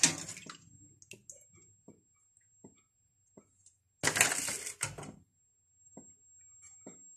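Pot of fir-bud and sugar syrup simmering on the stove, with scattered small pops and clicks from the bubbling liquid. A loud burst of noise lasting about a second comes about four seconds in.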